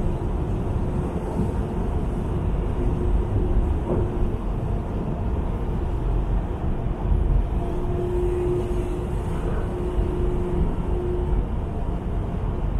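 Large car ferry's engines and propeller wash: a steady low rumble with churning water as the ship manoeuvres away from the quay. A faint steady hum comes and goes.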